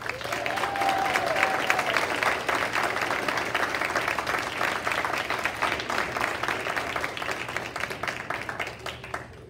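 Audience applauding: many hands clapping together. The applause starts suddenly, tapers a little and stops just before the end.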